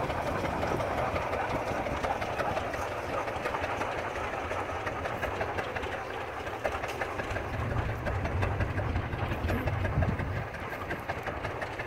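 Case 20-40 tractor's two-cylinder engine working under load while pulling a six-bottom plow, a continuous clattering run; it grows a little fainter near the end as the tractor moves off.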